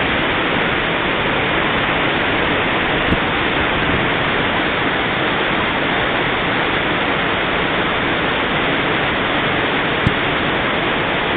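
Dudhsagar waterfall's falling water making a steady, dense rushing noise. Two brief clicks sound over it, about three seconds in and near the end.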